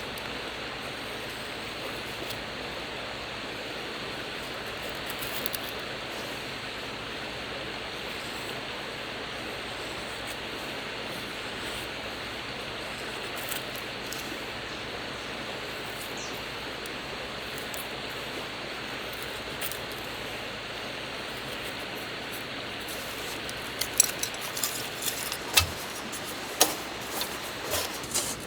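Steady rushing outdoor noise, then a quick run of sharp clicks and clinks in the last few seconds, like hard objects being handled.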